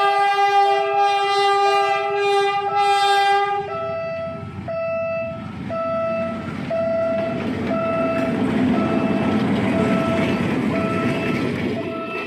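An old Philippine National Railways (PNR) commuter train sounds a long multi-tone horn blast lasting about four seconds, then rumbles past on the tracks, the rumble growing louder in the second half. A short warning tone repeats about once a second throughout.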